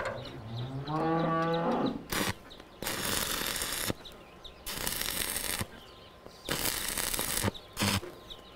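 A cow moos once, a long low call in the first two seconds. It is followed by an electric welder crackling in three bursts of about a second each and a short fourth one.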